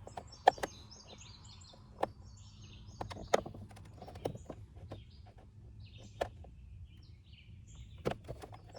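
Scattered sharp plastic clicks and taps, about eight in all, as a flathead pushes in on the retaining tabs of a 7th-gen Nissan Maxima's center console pocket. Birds chirp faintly in the background.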